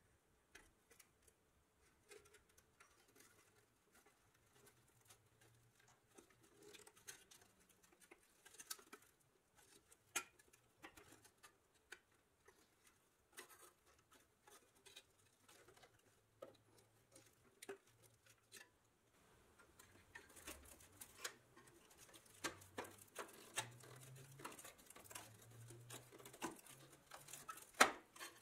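A screwdriver blade scraping and prying against the rusty pressed-steel body of a 1963 Tonka toy fire truck. Faint scattered clicks and scratches that grow busier in the last third, with a sharper metallic click near the end.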